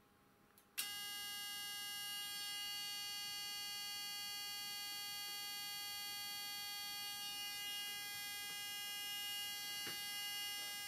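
A steady, buzzy high-pitched whine comes on suddenly about a second in and holds: a vintage Smiths sensitive altimeter's sensor windings singing under AC drive from a function generator, a sign that the drive amplitude is set high.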